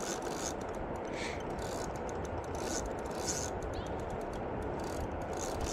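Steady rush of river current, with a few faint clicks and scrapes over it.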